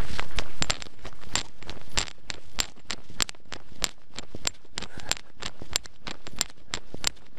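Running footsteps crunching on a gravel and dirt path, in a steady rhythm of about one heavy jolt every two-thirds of a second.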